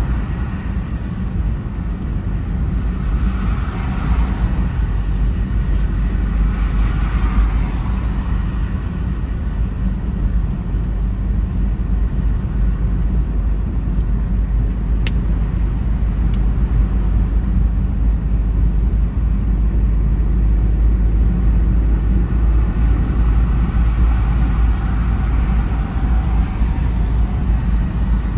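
Car driving, a steady low rumble of engine and tyre noise with swells of road noise now and then. Two brief clicks a little past the middle.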